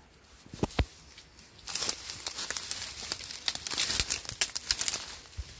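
Dry reed stalks and leaf litter crackling and rustling as someone pushes and moves through a dense cane thicket, with a couple of dull thumps under a second in and dense crackling through the middle of the stretch.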